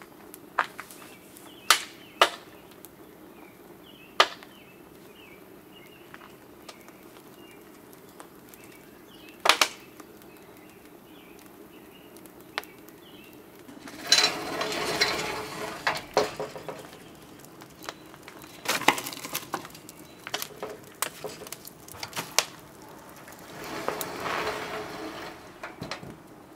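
Wood fire burning in a kiln firebox, giving several sharp, isolated pops over the first ten seconds. From about halfway on come three longer rustling, scraping stretches of a second or two each.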